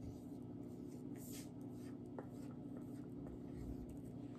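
Dry-erase marker writing on a small handheld whiteboard: faint, short scratchy strokes as a word is written out, over a steady low hum.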